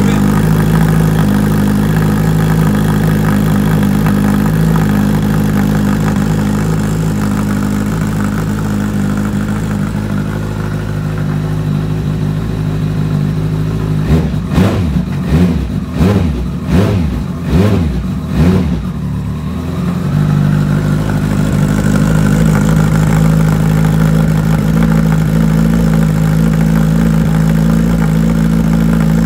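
Kawasaki ZZR1400's inline-four engine idling steadily, blipped about eight times in quick succession for some six seconds about halfway through, then settling back to a steady idle.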